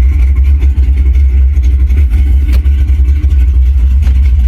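Pontiac Trans Am engine running steadily with a heavy low rumble, a recording played loud through a truck's stereo speakers.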